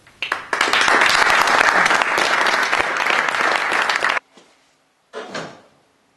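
Audience applauding, starting just after the start and cut off abruptly after about four seconds. A brief sound follows about a second later.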